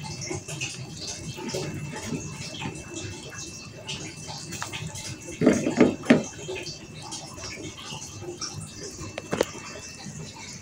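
Water boiling in a pot with blocks of overripe tempe, a continuous fine crackle of bubbles. A brief louder burst of sound comes about halfway through, and a single sharp click near the end.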